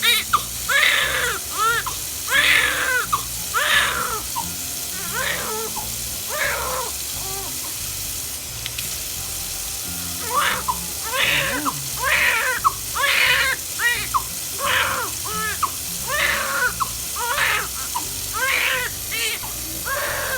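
Newborn baby crying while being bathed: short wails about once a second, a few seconds of quiet about two-thirds of the way through the first half, then the wailing starts again.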